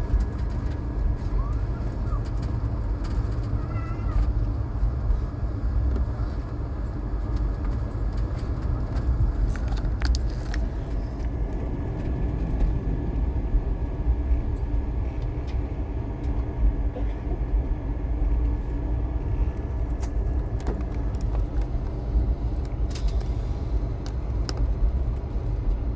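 Steady low running rumble of a moving passenger train heard from inside the coach, with occasional sharp clicks and knocks.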